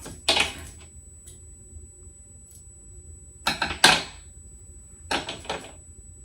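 Heat-resistant tape being pulled off its roll and torn in three short rasping rips: a brief one about a second in, a louder double one around four seconds, and another just after five seconds.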